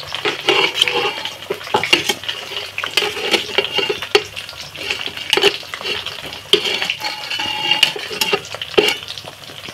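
Metal spoon scraping and clinking against steel cookware as spiced mutton and potatoes are spooned out of a steel pan onto rice. Repeated sharp clinks come in among short scrapes, some with a brief metallic ring.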